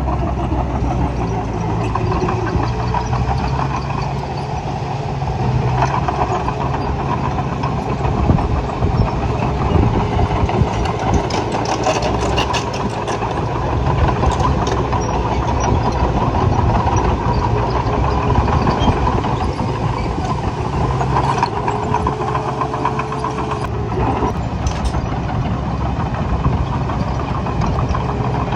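Engine of an earthmoving machine running steadily, with scattered clicks and knocks.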